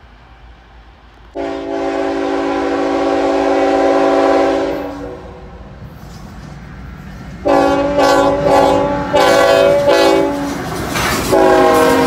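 Air horn of a CSX freight locomotive, a chord of several notes: one long blast, then a string of shorter blasts and another long one near the end, typical of a grade-crossing warning. Rail noise from the passing freight cars runs underneath as the train goes by.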